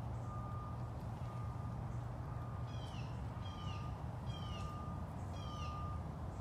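A vehicle's backup alarm beeping about once a second over a steady low engine rumble, with a bird giving four descending calls, each under a second apart, from about three seconds in.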